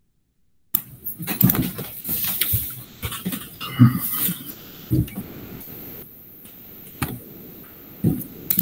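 Audio cuts in abruptly about a second in as a video-call microphone opens, then picks up scattered clicks, bumps and rustling handling noise.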